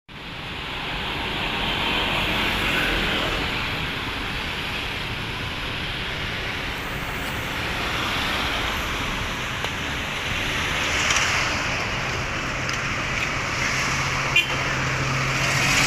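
City street traffic: a steady wash of passing cars and engines. A low engine hum joins about twelve seconds in, with a brief sharp click soon after.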